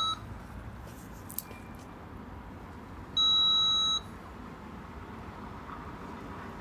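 Door intercom to reception ringing after its call button is pressed: a steady electronic beep of just under a second, repeating every few seconds while the call waits to be answered. One beep is ending at the start and another sounds about three seconds in.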